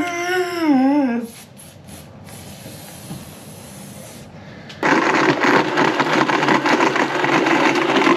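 A short wordless vocal sound at the start, then a Blendtec blender switches on suddenly about five seconds in and runs loud and steady, churning ice cubes, banana and soy milk into a protein shake, with a rapid rattle of ice against the jar.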